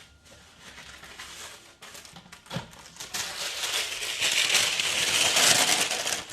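A used sheet of aluminum foil being handled and unfolded, crinkling. It starts faintly and grows louder and busier from about halfway through.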